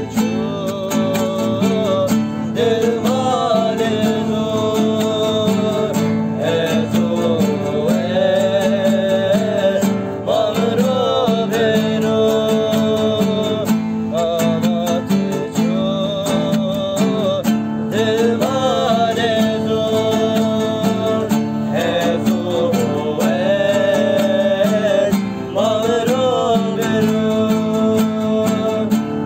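Two classical guitars strummed together under a man singing a Kurdish folk song, his voice holding long notes that waver and bend.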